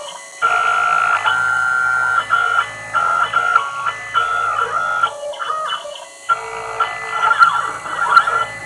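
CNC milling machine engraving lettering with a V-bit, its stepper motors whining at steady pitches that jump up and down with each change of direction and speed, over a low hum. The machine pauses briefly about five seconds in, then starts again.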